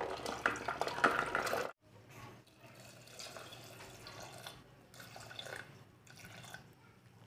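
Chopped vegetables and washed toor dal tipped from a steel bowl into a pressure cooker, a dense run of small knocks and rattles that stops abruptly after about a second and a half. Then water poured into the cooker, splashing in several uneven pours.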